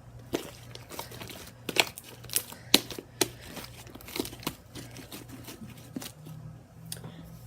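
Fluffy slime made of glue and shaving cream being kneaded by hand, giving irregular sharp sticky pops and crackles as it is squeezed and pulled, several loud ones close together about two to three seconds in.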